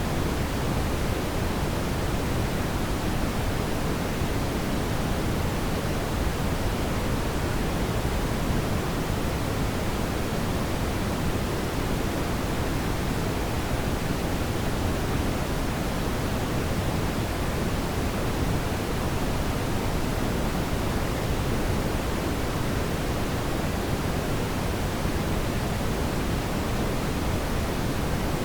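Steady brown noise: a constant, deep, even rush of synthetic noise, heaviest in the low end.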